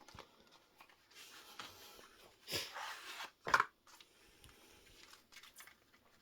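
Packaging of a small pocket knife being opened by hand: soft rustling and light clicks, with one sharp snap about three and a half seconds in.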